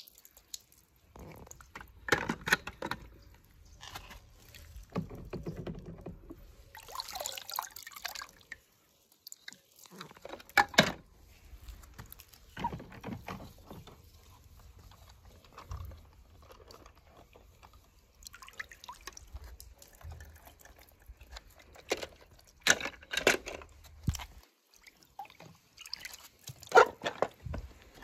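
Water splashing and sloshing in a shallow plastic tub as a hand moves through it, with dripping and a few sharp knocks of plastic toys.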